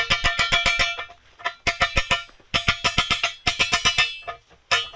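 Hammer beating on the seized steel shackle pin of a drilling reamer to shock it loose: rapid ringing metal-on-metal blows, about eight a second, in five quick bursts with short pauses between them.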